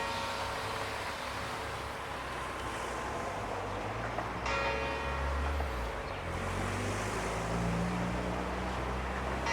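The ship's bell of the armored cruiser USS West Virginia is struck, slow and evenly spaced about five seconds apart. The previous stroke rings out at the start, a fresh stroke comes about four and a half seconds in and another right at the end, each ringing on and fading slowly. A low steady rumble runs underneath.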